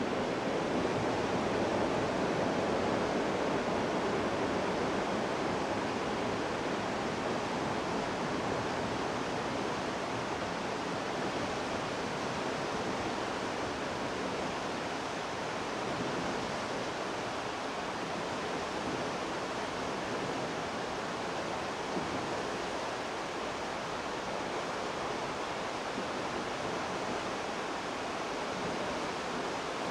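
The Hozu River rushing steadily through its rocky gorge.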